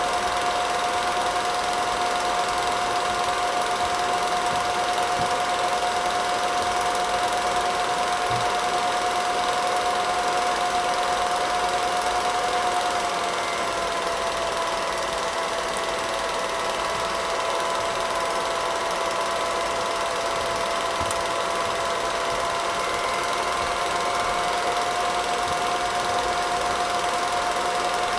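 Film projector running: a steady mechanical whir with a constant whine that drops slightly in pitch about halfway through.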